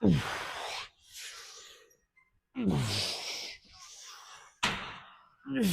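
A person's loud, voiced out-breaths, three times about two and a half seconds apart, each starting sharply and falling in pitch, like a grunting sigh, with quieter breaths in between.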